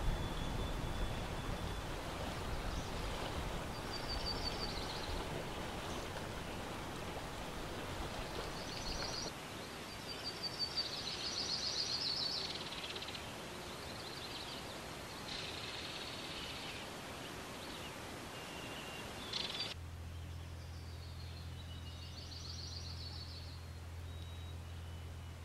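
Songbirds singing short trilling phrases again and again over a steady hiss of outdoor ambience. About twenty seconds in, the background changes abruptly to a quieter one with a low steady hum.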